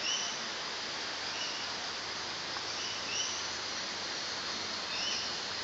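Rainforest ambience: a steady rushing hiss with a bird giving short high chirps, several times, a second or so apart.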